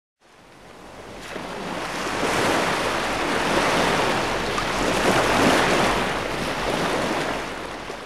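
Intro logo sound effect: a rushing, surf-like noise that swells up over the first couple of seconds, holds, then fades away at the end.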